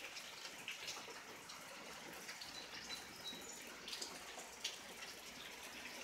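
Quiet steady hiss of room tone, with a few faint clicks of the phone being handled.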